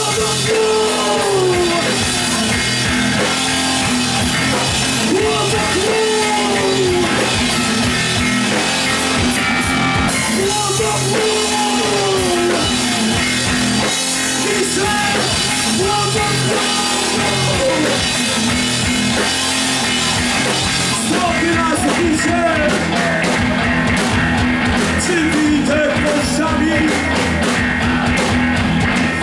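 Live rock band playing loudly: drum kit, electric guitar and a man singing into a microphone, with no break.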